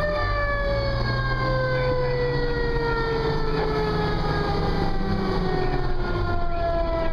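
Fire engine siren that has just wound up and now slowly winds down in pitch, over the steady low rumble of the truck's engine, heard from inside the cab.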